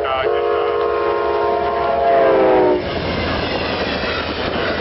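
Amtrak GE Genesis diesel locomotive's horn sounding a long chord at a level crossing, the last blast of its crossing signal. The horn grows loudest and dips slightly in pitch as the locomotive passes, then cuts off about three seconds in. After it comes the rumble and clatter of the passenger cars rolling by.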